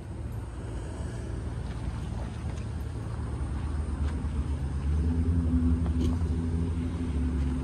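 A motor vehicle's engine running steadily, growing louder, with a steady low hum setting in about five seconds in.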